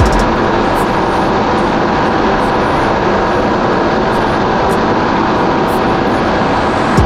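Kawasaki SX-R 1500 stand-up jet ski running steadily at speed: a loud, even engine and pump noise mixed with the rush of water under the hull.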